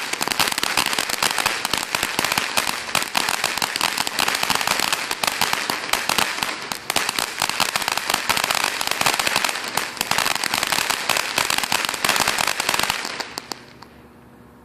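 A ground fountain firework burning with a dense, fast crackle over its spray, dying out about thirteen seconds in.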